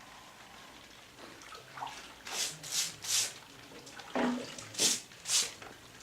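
Footsteps: six short crunching steps, about two a second, in two runs of three with a brief pause between them.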